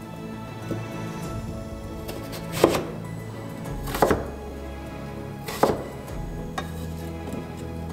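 Kitchen knife chopping Korean radish (mu) into cubes on a wooden cutting board. Three sharp knocks of the blade striking the board come about a second and a half apart, with a couple of fainter cuts, over background music.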